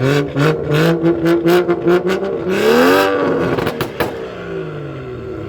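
BMW M135i exhaust crackling with rapid pops, about five a second, over a held engine note. About two and a half seconds in, the engine revs up and falls back, firing a few sharp bangs as the revs drop, then settles.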